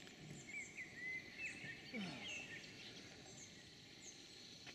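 Faint birdsong of short chirps and quick rising and falling whistles, over a steady high trill of insects.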